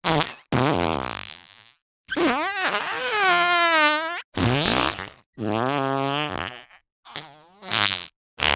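Fart putty squeezed to make a string of cartoon fart noises: about seven separate ones of varying length with short gaps between. Several have a clear, wavering pitch, and the longest, about two seconds in, lasts around two seconds.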